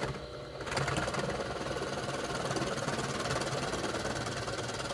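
Bench drill press running and boring a hole into a block of softwood, the motor's steady hum under the noise of the bit cutting wood. The cut eases briefly about half a second in, then bites again.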